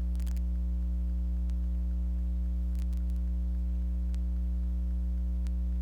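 Steady electrical mains hum throughout, with a few faint light clicks, about a quarter second in and again around three seconds in.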